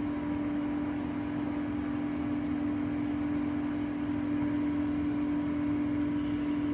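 A steady mechanical hum with one constant low tone over a layer of hiss.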